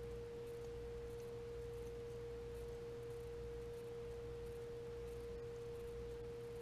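A steady single-pitched hum in the mid range with a lower hum beneath it, unchanging throughout. No other sound stands out.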